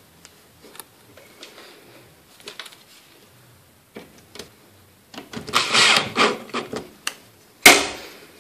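Cordless drill driving a screw to fix a letterbox's inside section to a wooden door, running for about two seconds in the middle and rising and dipping as it drives. Light handling clicks come before it, and a single sharp knock comes near the end.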